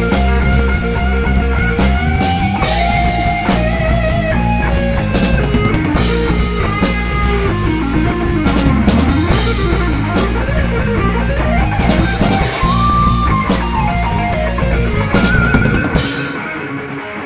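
A rock band playing live: electric guitars, electric bass and drum kit, with a lead guitar line that bends and slides in pitch over the pounding drums and cymbals. About a second before the end, the drums and bass drop out, leaving the guitars ringing on their own.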